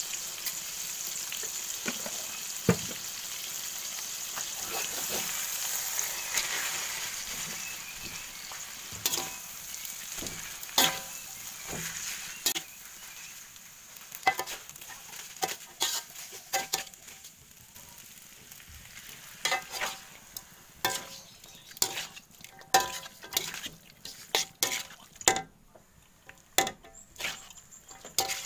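Food sizzling in hot oil in a wok, the hiss fading after the first half, while a metal spatula stir-fries noodles, knocking and scraping against the wok in many sharp, irregular strikes that come thick and fast near the end.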